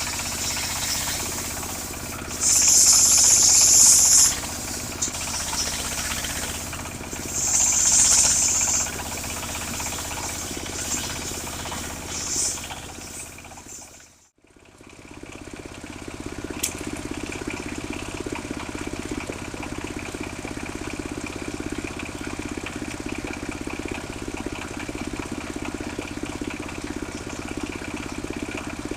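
A steady high hiss with two loud, high-pitched buzzes of a second or two each, then a sudden cut just before the halfway point. After the cut an engine, that of a portable circular sawmill, runs steadily at an even speed and is not cutting.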